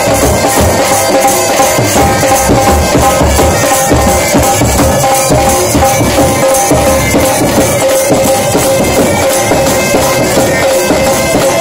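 Pipe band playing: bagpipes sounding a steady held drone and melody over regular drumbeats from a slung drum.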